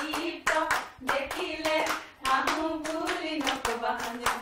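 A group of people clapping their hands in rhythm, with singing voices alongside the claps.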